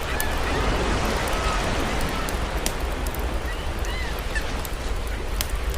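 Campfire crackling with a few sharp, scattered snaps over the steady wash of ocean surf, with some faint bird calls in the background.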